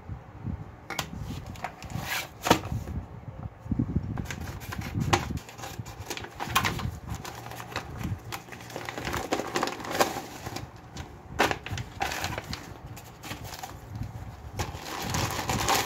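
Plastic packaging handled and opened by gloved hands: a plastic mailer bag and the inner plastic bag crinkling and rustling, with scattered clicks and taps.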